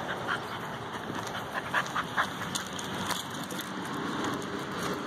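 Footsteps of a person and a dog walking, over a steady background hiss, with a few short sharp crunches about two to three seconds in.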